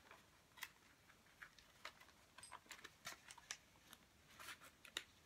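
Faint rustling and small scattered ticks of a cardboard record mailer being opened and handled, a little busier near the end.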